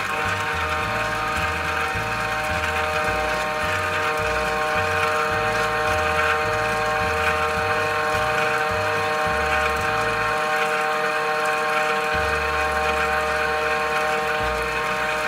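KitchenAid stand mixer starting up and running steadily on mixing speed, its motor and gearbox giving a steady whine as the dough hook turns through flour and water.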